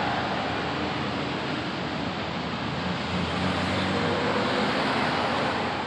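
Steady outdoor background noise: a continuous rush with a faint engine hum under it, with no distinct events.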